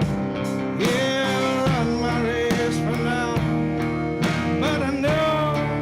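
Blues band playing an instrumental passage: slide guitar with held notes sliding in pitch, over a steady drum beat.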